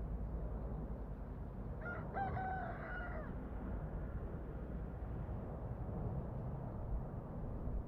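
A rooster crows once, a single call of about a second and a half, about two seconds in, over a steady low background rumble.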